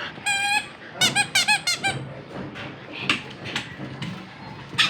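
Squeaky dog toy squeaking under a husky's bites: one longer squeak, then a quick run of about five short squeaks. A few light knocks follow, the last near the end.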